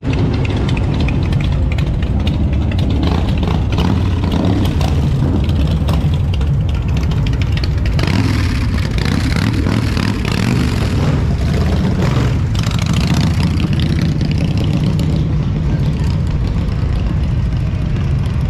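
Motorcycle engines rumbling as several bikes ride slowly past close by, with a louder pass about halfway through.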